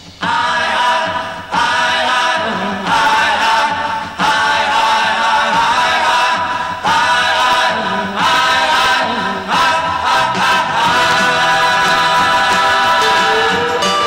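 Opening theme music with singing voices, sung in short phrases that restart every second or two, ending on a long held note.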